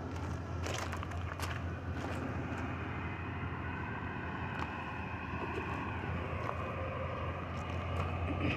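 Metrolink commuter train approaching along the platform track: a steady low rumble.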